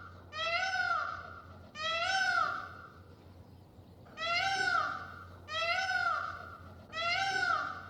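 A cat meowing five times, each meow about a second long and rising then falling in pitch, with short pauses between them.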